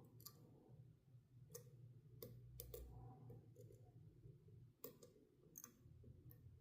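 Faint, sharp clicks at irregular intervals, about eight of them, from a pick and tension wrench working the pins and warding inside a Master Lock padlock.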